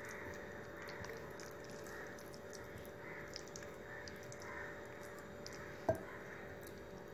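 Faint wet squishing of a hand rubbing thick masala paste into chicken leg pieces in a bowl, over a steady low hum. There is a single sharp knock about six seconds in.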